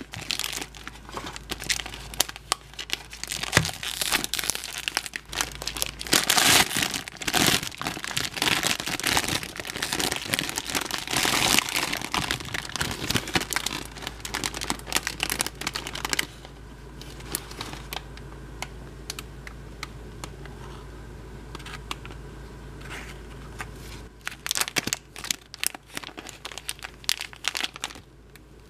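Foil wrapper of a jumbo chocolate egg crinkling and tearing as it is pulled open and peeled off. The crinkling is dense for about the first sixteen seconds, then dies down, with a short spell of crinkling again near the end.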